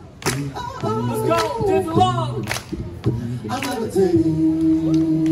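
A cappella vocal group singing in close harmony over a sharp beat about twice a second; about four seconds in the voices settle on a long held chord.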